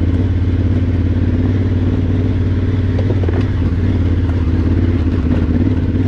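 Adventure motorcycle engine running at low, steady revs while climbing a rough, rocky dirt trail, with a few light clicks about three seconds in.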